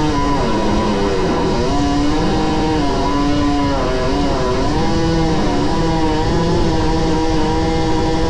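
A power cutting tool running, its motor pitch dipping briefly several times as it bogs under load while cutting, then recovering.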